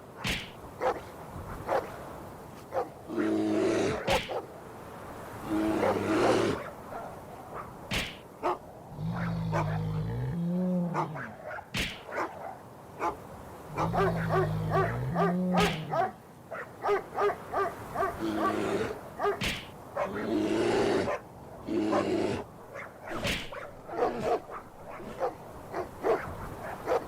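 Dogs barking repeatedly in short pitched bursts, at times several barks a second, with a few longer, lower vocal sounds mixed in.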